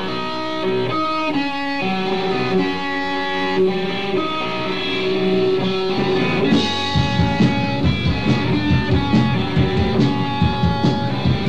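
Live rock band: an electric guitar plays a melodic intro alone, its notes ringing and changing every half second or so, then about six and a half seconds in the drums come in with a steady beat and the full band plays.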